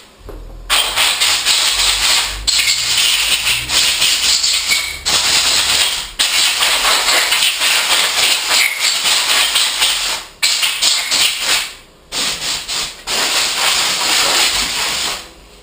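Loud hissing from a pressurised spray, in long bursts of a few seconds each with short breaks between them.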